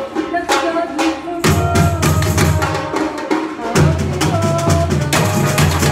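Samba bateria drumming: quick, sharp stick and hand-drum strokes, with the deep surdo bass drums coming back in about a second and a half in and pounding more heavily from about four seconds.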